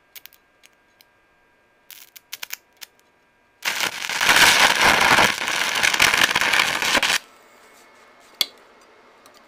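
A few short clicks, then a stick-welding arc burns loudly for about three and a half seconds and cuts off suddenly.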